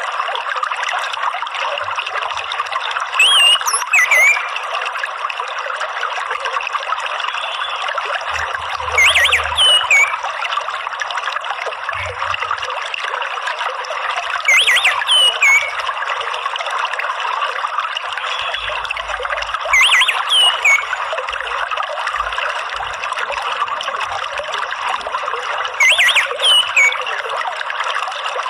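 Water trickling and flowing steadily, with a short burst of high, gliding bird chirps every five or six seconds: the 'ngeriwik' chirping of an orange-headed thrush.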